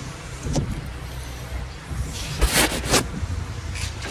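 Diesel engine of an Airman PDW280 welding generator running steadily with a low rumble. A couple of short clattering noises come about two seconds in.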